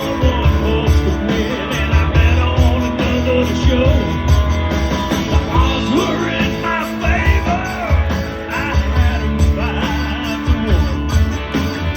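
Rock music with a singer over guitar, bass and a steady drum beat.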